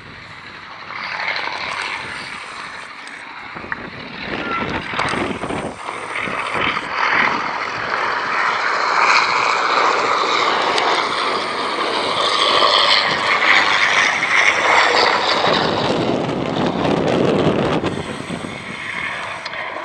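Fieseler Storch's Argus As 10 inverted V8 engine and propeller in flight. It grows louder from about eight seconds in as the aircraft comes close, then eases off near the end.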